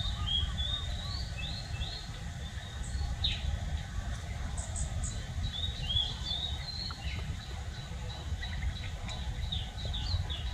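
Small birds chirping, with many short high chirps in scattered runs, over a steady low rumble.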